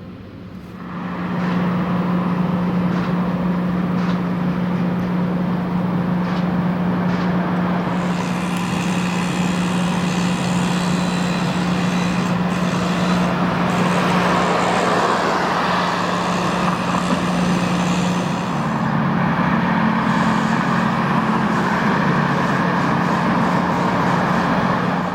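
Heavy road vehicle engine running close by amid street traffic. A steady hum comes in about a second in and shifts slightly in pitch near the end.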